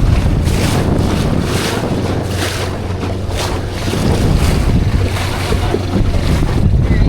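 Small 14-foot fishing boat running at speed: its outboard motor runs as a steady low hum under heavy wind noise on the microphone, with a rushing noise that swells about once a second.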